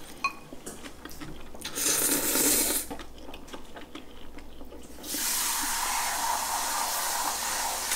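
Slurping of cold bibim noodles (Paldo Bibimmyeon) pulled up with chopsticks: a slurp of about a second about two seconds in, then a longer, steady slurp from about five seconds in.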